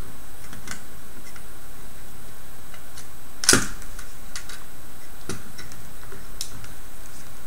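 Scattered light clicks and snaps as needle-nose pliers work a motor loose from the rover's chassis, with one sharper snap about three and a half seconds in, over a steady background hiss.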